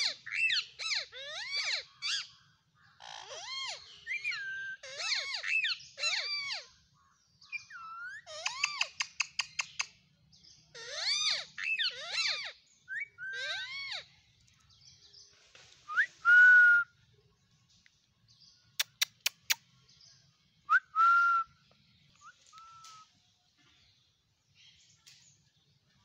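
Indian ringneck parakeets chattering and squawking in rapid burbling, whistled phrases, with a quick run of clicks about eight seconds in. Two loud, shrill single screeches follow, around the middle and about two-thirds of the way through, and the birds go much quieter near the end.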